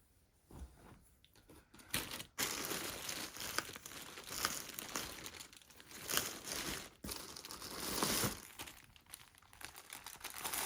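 Packaging crinkling and rustling as it is handled and pulled open, starting about two seconds in and running on with brief pauses.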